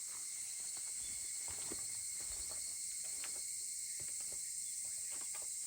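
A steady, high-pitched chorus of insects, with scattered small crackles and pops from a wood fire.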